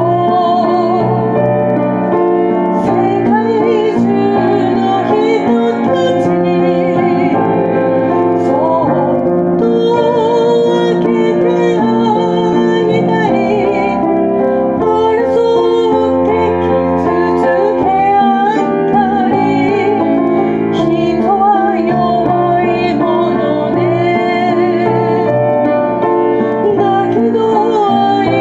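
Piano accompaniment with a woman singing a Japanese pop ballad, sung with vibrato.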